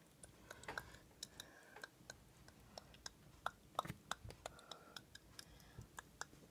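Faint, irregular light clicks and taps, a few a second, from fingertips tapping the glass screen of an iPad 2 while working through its settings.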